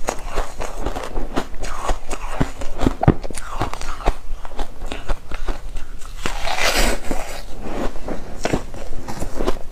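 Close-up biting and chewing of frozen foam ice: a quick, uneven series of soft, powdery crunches, with a longer, hissier crunch about six and a half seconds in.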